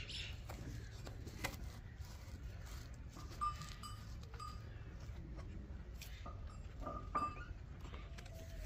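A stiff door being worked open by hand: a few faint knocks and rattles, with some short, faint squeaks.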